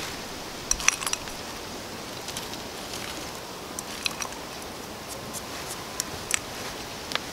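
Chopped oak galls clicking and rattling against a small metal pan as they are handled: a few sharp clicks about a second in, then single clicks every second or two, over a steady outdoor hiss.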